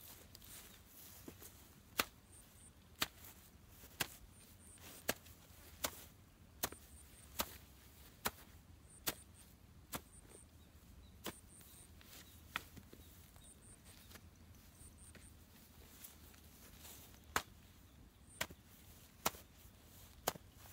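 A hoe chopping into grassy turf: sharp strikes roughly one a second, with a pause of several seconds past the middle.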